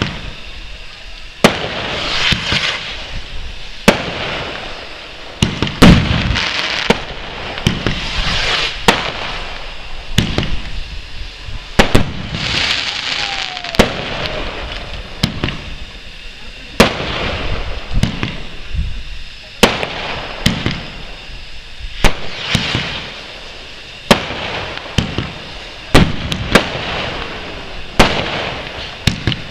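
Fireworks display: a run of sharp bangs from bursting shells, one every second or two, several followed by a stretch of crackling.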